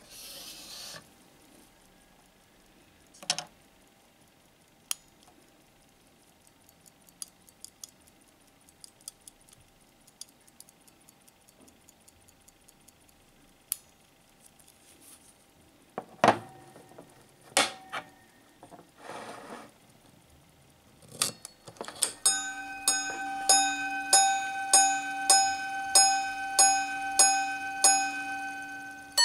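Volta minute repeater wristwatch, a recased pocket-watch movement with a silent regulator, chiming on its gong: an even run of single ringing strikes, a little under two a second, starting about two-thirds of the way in. Before it come scattered clicks and taps as the watch is handled and the repeater is set going.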